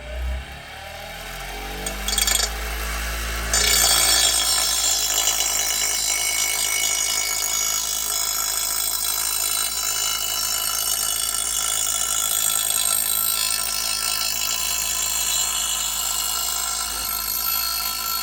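Electric grinder switched on and running up to speed, then from about three and a half seconds a steady grinding as the edge of a dull, nicked steel mower blade from an Exmark Laser Z zero-turn is ground along in a sharpening pass.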